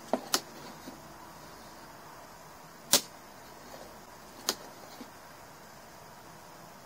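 Sharp mechanical clicks from an RCBO in a domestic consumer unit as an automatic 30 mA RCD test runs on its circuit: a few light clicks at the start, a loud snap about three seconds in and another about a second and a half later, the device's trip mechanism operating under the test current.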